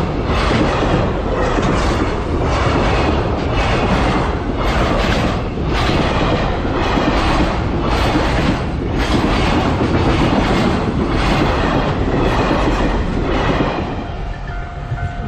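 Freight wagons rolling past at speed, their wheels clacking over the rail joints in a steady run of paired beats. The clatter eases near the end.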